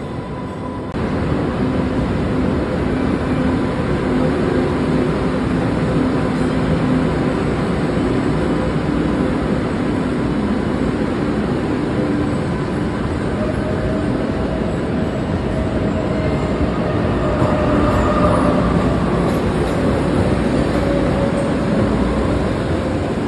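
Green Line light-rail trains running through an underground subway station: a continuous rumble of steel wheels on rail with a steady motor hum, growing louder about a second in. In the second half, faint whines rise and fall in pitch as another train pulls in alongside the platform.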